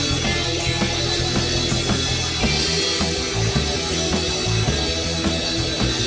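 Instrumental stretch of a rock song: a band playing guitar and drum kit with a moving low line underneath, with no singing.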